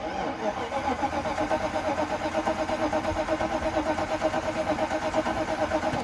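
Starter motor cranking the Mercedes 420SEL's V8 with the crankshaft position sensor unplugged, so it spins without firing, in a steady rhythmic pulse that stops abruptly near the end. This is a compression test on the misfiring cylinder, with the gauge attached.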